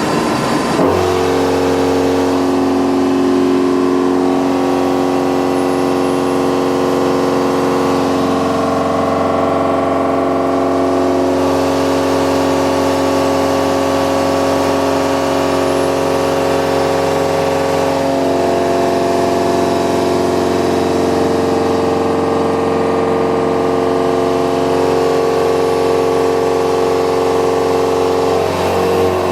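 Indexable-insert milling cutter machining metal: a steady, loud multi-tone hum from the cutting, whose pitches shift a few times as the cut goes on.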